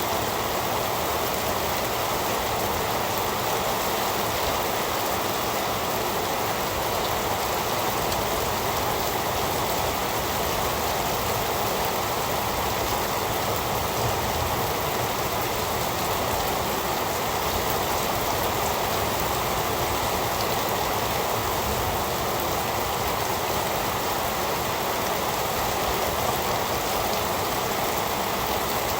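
Heavy rain falling steadily: a dense, even hiss of drops on surfaces.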